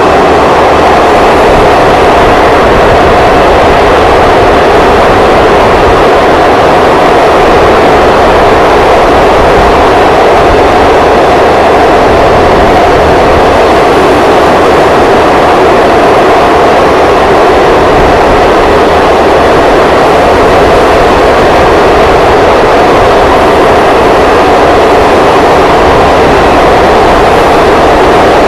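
Passenger train running at speed through a long rail tunnel, heard from on board: a loud, unbroken rushing noise of wheels, rails and air echoing off the tunnel walls, steady in level and pitch throughout.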